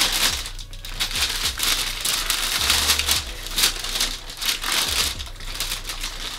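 Paper wrapping crinkling and rustling in irregular bursts as a sneaker is pulled out of it by hand.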